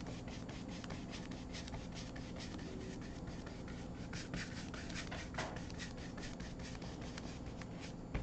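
Wide paintbrush scrubbing and blending wet acrylic paint back and forth across a painting board, a steady run of short brush strokes.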